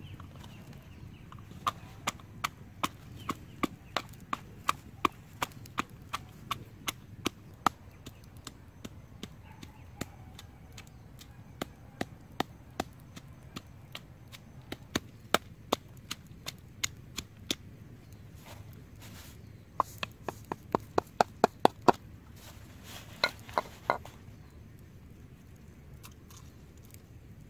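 Wooden pestle pounding in a small wooden mortar, crushing red chili peppers and garlic: runs of sharp knocks about two a second, broken by pauses, with the quickest and loudest run about twenty seconds in.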